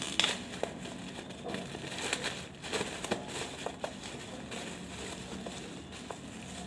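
Bubble-wrap packaging crinkling and rustling as it is pulled apart by hand, with irregular small crackles and clicks.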